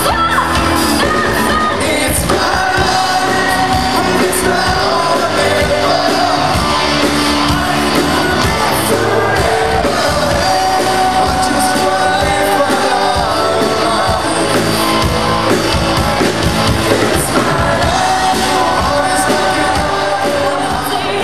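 Live pop band playing through a PA, with a lead singer over electric guitars, drums and keyboards.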